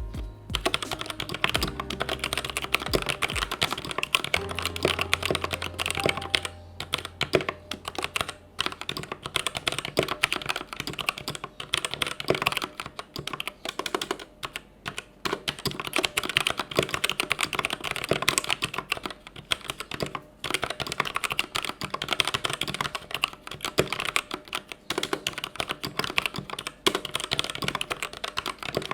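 Fast, continuous typing on a Vortex VX5 60% mechanical keyboard with Outemu Red linear switches: a dense run of keystroke clacks, with a few brief pauses.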